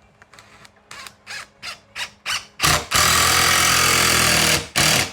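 Power drill driving a screw: a string of short trigger pulses that grow longer and louder, then a steady run of about two seconds, then two more short bursts near the end.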